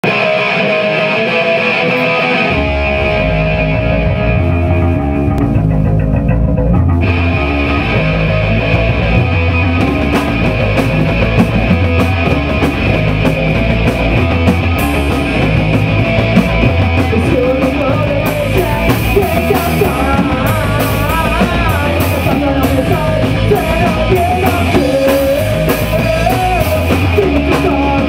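Live punk rock band playing loud. Electric guitar opens alone, bass comes in after about two seconds, and the drum kit with cymbals joins about ten seconds in.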